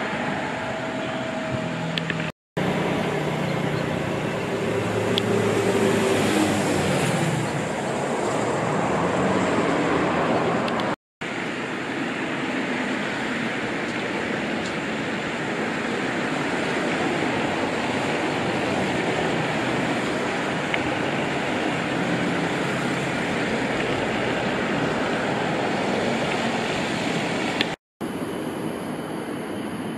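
Steady hum of road traffic, with a vehicle passing about five seconds in. The sound cuts out briefly three times.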